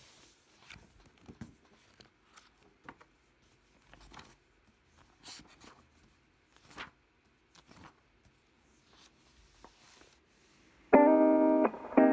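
Faint, scattered small clicks and rustles of hands handling objects. About eleven seconds in, loud background music starts with sustained keyboard notes.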